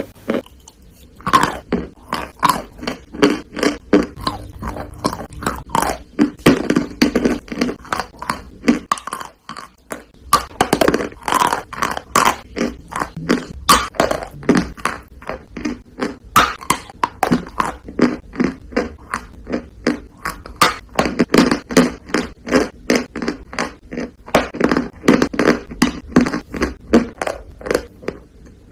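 Close-up chewing of chalk: rapid, crisp crunches from the mouth, with a brief pause about nine seconds in.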